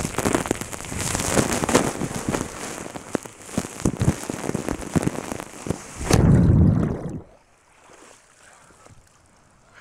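Water rushing and spraying over a phone's microphone during a ride down a steep water slide, crackling with drops. About six seconds in comes a loud, deep whoosh as the rider shoots out into the pool, and the sound cuts off suddenly about a second later.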